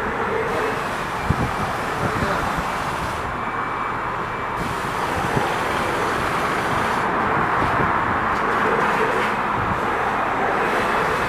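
Steady road and wind noise of a car driving, with a few light knocks.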